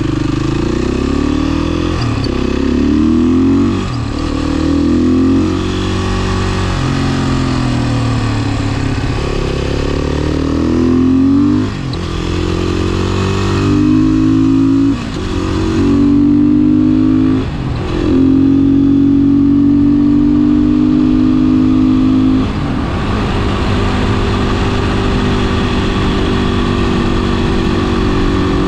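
Beta 500 RS supermoto's single-cylinder four-stroke engine pulling up through the gears, its pitch rising in each gear with several brief dips as it shifts up. It then holds a steady cruise and eases off to a lower, even note a few seconds before the end.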